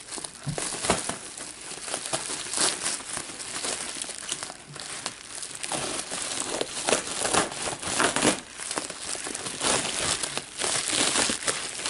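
Plastic bubble wrap crinkling and crackling as it is cut open and pulled apart by hand, in irregular, uneven crackles.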